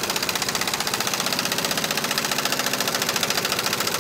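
Cordless impact wrench hammering steadily in rapid strokes as it tightens down the track bar bolt on a race car's chassis.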